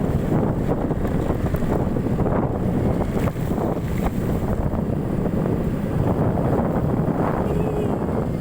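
Wind buffeting the microphone of a moving motorcycle, over the steady running of its engine and the tyres on a rough road.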